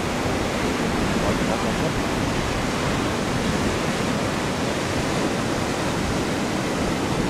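Steady rush of ocean surf breaking on the shore, an even wash of noise with no distinct events.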